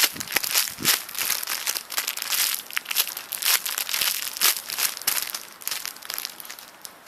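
Irregular crinkling and rustling of packaging being handled, a dense run of quick crackly rustles with no steady rhythm.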